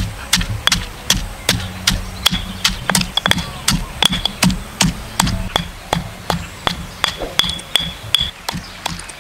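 Stone pestle pounding garlic and red chilies in a stone mortar, a steady run of knocks about three a second.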